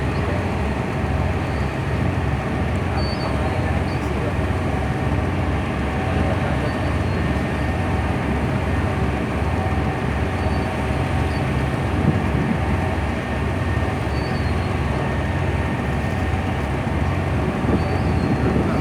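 Tugboat diesel engine running steadily, a loud low drone with an even, rapid throb and a steady hum above it.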